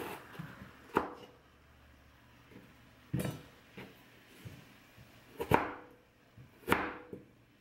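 A kitchen knife chopping on a cutting board: single sharp knocks, unevenly spaced about every second or two.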